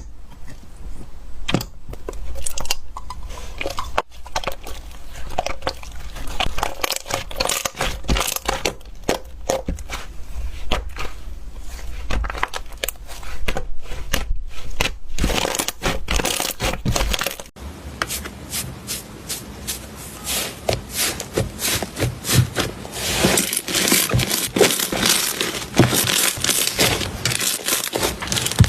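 Slime being squeezed and poked, giving a quick run of crisp crackles and pops. About two-thirds of the way through, the texture changes and the crackling grows denser.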